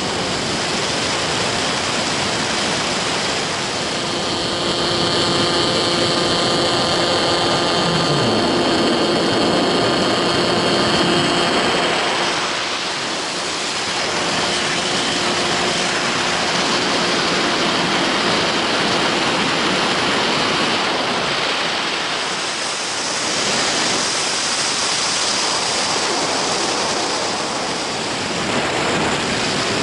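Onboard sound of a Skywalker FPV model plane in flight: wind rushing over the camera microphone, with the steady whine of its electric motor and propeller. The whine is plainest in the first twelve seconds or so, then sinks into the wind noise.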